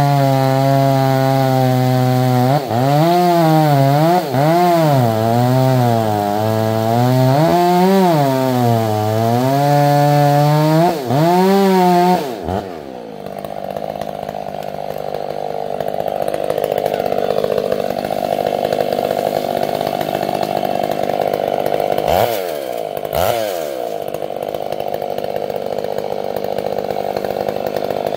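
Two-stroke chainsaw running, its engine pitch rising and falling again and again as the throttle and load change. About twelve seconds in the pitch drops away and a steadier, rougher running sound takes over, with two quick revs near the end.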